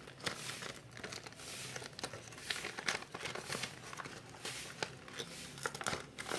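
Gift-wrapping paper crinkling and rustling in irregular bursts as a parcel is unwrapped by hand.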